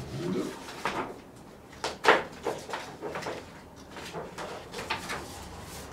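Paper pages of a standing flip chart being turned and handled: a string of short rustles and flaps, the loudest about two seconds in.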